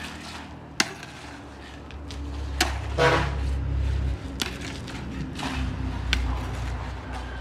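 Hoes and shovels chopping and scraping into loose earth and stones, sharp knocks about every one and a half to two seconds, with a louder brief grating sound about three seconds in. A low rumble sits underneath from about two seconds in.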